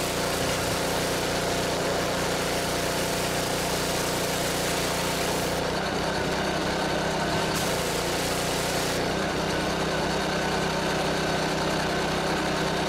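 Gas-engine pressure washer running steadily, its water jet hissing against the wooden fence boards. The high hiss thins out for a moment about halfway through and again a couple of seconds later.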